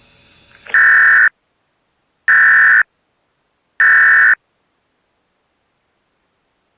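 Three short bursts of buzzy SAME emergency-alert data tones, each about half a second long and a second and a half apart. These are the end-of-message bursts that close an EAS alert, here slowed to 300 baud instead of the standard rate.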